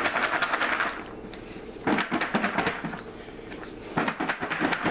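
Chocolate-coated Chex cereal rattling inside a lidded plastic bowl as it is shaken to coat the pieces in powdered sugar. The rattle comes in three bursts about two seconds apart.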